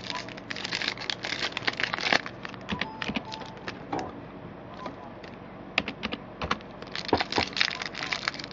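Trading-card pack wrapper crinkling and cards being handled, with irregular clusters of small crackles and clicks that thin out for a couple of seconds in the middle.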